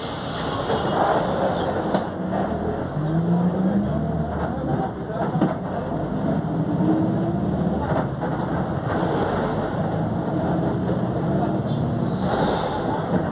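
Volkswagen 17.230 OD bus under way, its engine running and its differential droning loudly, with a whine that rises in pitch twice as the bus picks up speed.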